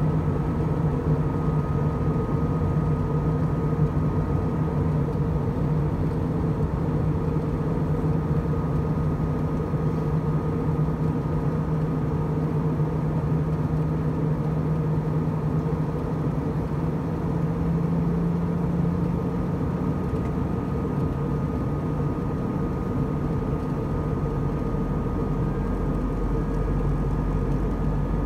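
Steady cabin drone of an Airbus A319 in descent, heard from inside the cabin: jet engine hum over a constant rush of airflow. The main hum shifts slightly about two-thirds of the way through, and a deeper rumble comes in near the end.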